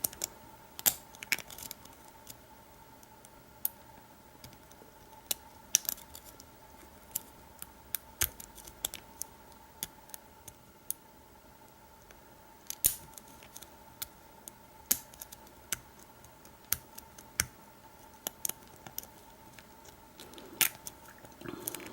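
Lock pick and tension tool working in the keyway of an American Lock 5200 padlock: scattered faint metallic clicks and scrapes as the pins are probed, at irregular intervals.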